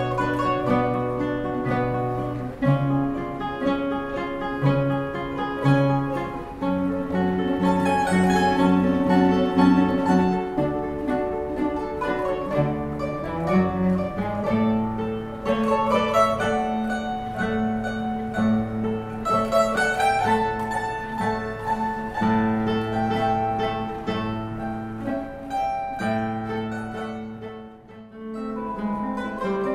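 Plucked-string ensemble of mandolins and classical guitar playing a piece with several overlapping melodic lines over a low bass line. The music thins out briefly about two seconds before the end, then resumes.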